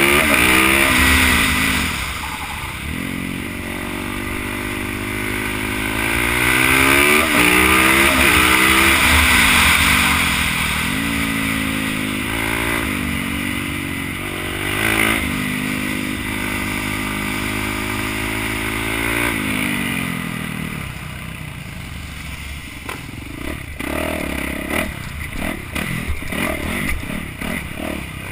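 Supermoto motorcycle engine under race throttle, heard from the rider's helmet, its pitch climbing and dropping again and again as it is revved and shifted through the gears. About twenty seconds in the engine eases off and a run of clatter and knocks comes through with it.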